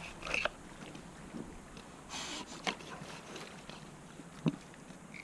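Fillet knife cutting a northern pike on a wooden board: scattered small scrapes and knocks, with a short rasping cut about two seconds in. Wind on the microphone and water lapping underneath.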